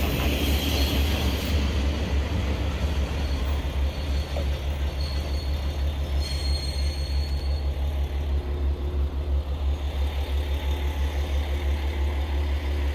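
JR Kyushu KiHa 40 diesel railcar's engine idling at the platform, a steady low throbbing hum, as a second diesel railcar pulls in alongside. A faint, brief high squeal comes about six seconds in.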